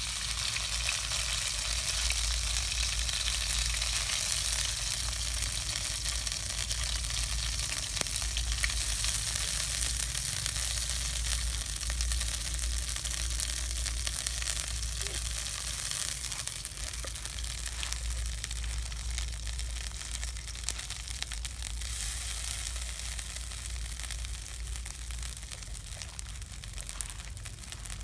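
Spice paste sizzling as it fries in a metal wok on a portable gas stove, with light clicks of a spoon stirring it. The sizzle starts suddenly and slowly dies down over the following seconds.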